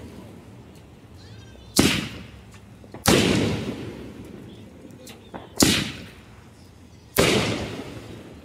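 Aerial shells from a Megabanger 'Zombied' consumer firework cake bursting in the sky: four sharp bangs about one to two and a half seconds apart, each trailing off in a rolling echo, with a couple of smaller pops between them.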